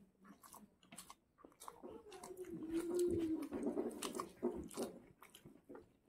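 Two people chewing Maggi instant noodles eaten by hand, with wet mouth smacks and short clicks throughout. A long low hum bends up and down in the middle for about two seconds.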